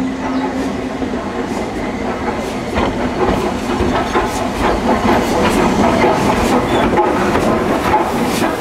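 Stanier 8F steam locomotive 48773 and its coaches rolling past tender-first, wheels rumbling on the rails with sharp clicks over the rail joints, growing louder as it draws alongside.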